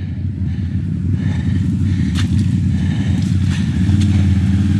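Can-Am ATV engine running with a steady low rumble. Its note grows stronger about four seconds in, and there are a couple of light knocks along the way.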